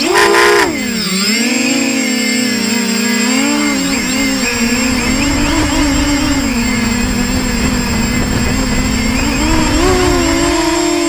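Versacopter 280 quadcopter's brushless motors and propellers whining close to the onboard camera. The pitch drops sharply about a second in, then holds fairly steady with small wavers and rises a little near the end.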